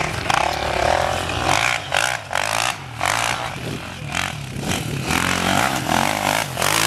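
Off-road enduro motorcycle engine revving hard, the throttle shut and opened again many times so the sound keeps dropping out briefly and coming back.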